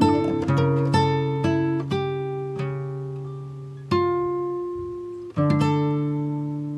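Background music on a plucked string instrument: notes and chords struck about every half second, each ringing on and fading, with longer held notes fading out before new strikes near the four- and five-second marks.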